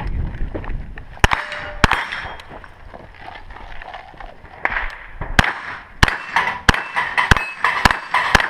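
Rock River Arms 9mm carbine firing single shots, with steel targets ringing after the hits: two shots, a pause of a few seconds, then a steady string of six shots a little over half a second apart.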